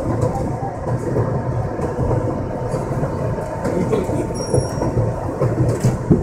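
R62A subway car running at speed on elevated track, heard from inside the front of the car: a steady rumble of wheels on the rails with occasional clicks over the rail joints.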